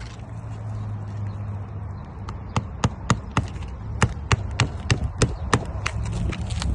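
Hammer driving roofing nails into asphalt shingles: a run of sharp strikes at about three a second, starting a little over two seconds in, over a low steady rumble.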